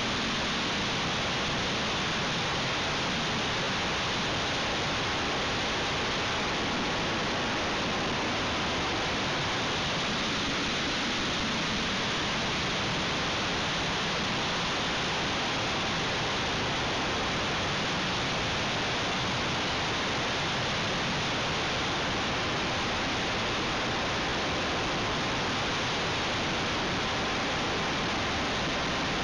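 Steady rushing noise of airflow and propeller heard on the onboard camcorder of a radio-controlled model plane in flight, with a faint thin whine at times.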